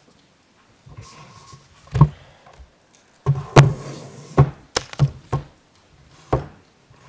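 Handling noise picked up close on a desk microphone: a series of sharp knocks and thumps with rustling between them as a large plastic cutting mat is lifted and moved about on the desk. One loud knock comes about two seconds in, then a quick run of knocks between three and a half and five and a half seconds, and one more near the end.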